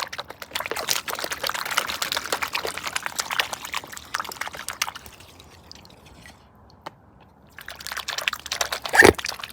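Swans feeding with their bills in the water: a quick run of wet slurping splashes and clicks for about five seconds, a pause, then more near the end with one louder splash.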